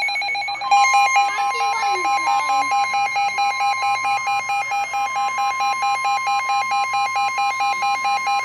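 Emergency alert tones on NOAA Weather Radio: a rapidly pulsing alarm beep throughout, joined about a second in by the steady 1050 Hz weather-radio warning tone, signalling a severe thunderstorm warning about to be read.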